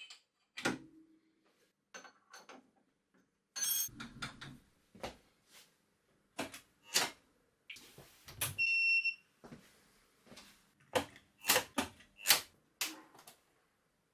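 A run of sharp clicks and knocks as switches and a circuit breaker in a wall breaker box are flipped, with no motor starting, and a short high beep about eight and a half seconds in.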